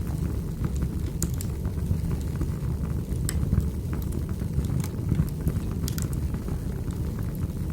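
Wood fire burning in a fireplace: a steady low rumble of flames with frequent irregular sharp pops and snaps from the burning logs.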